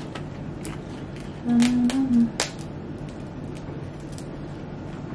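A woman's short closed-mouth hum, about a second and a half in, steady and then stepping up in pitch. Light sharp clicks of a king crab leg's shell being handled.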